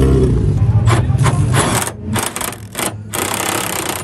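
A banger race car's engine running and fading away over the first second or so, then an impact wrench rattling in several short bursts as it drives a bolt on a car's bonnet.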